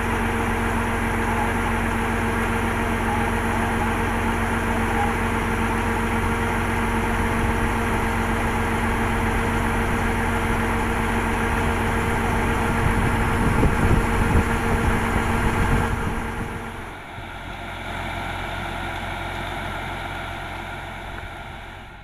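Kubota DC-105X combine harvester's diesel engine running steadily, swelling louder around thirteen to sixteen seconds in. About seventeen seconds in it drops away sharply to a quieter, higher hum that fades out at the end.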